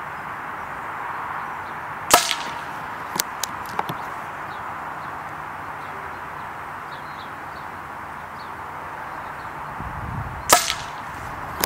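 Two shots from a Daystate MK4 pre-charged pneumatic air rifle, each a sharp crack, about eight seconds apart: one about two seconds in and one near the end. A few faint clicks follow the first shot, over a steady background hiss.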